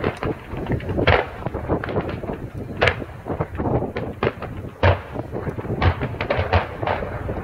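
Fireworks display: a rapid, irregular series of bangs and crackles, with wind buffeting the microphone underneath.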